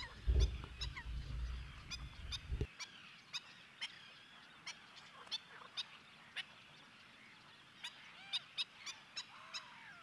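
Waterbirds calling in a wetland: a scatter of short, high calls and chirps, with a few lower, honk-like calls that rise and fall near the end. A low rumble runs under the first few seconds and stops.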